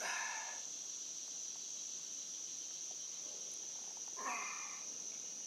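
Steady high-pitched drone of an insect chorus, with two short rough sounds, one right at the start and one about four seconds in.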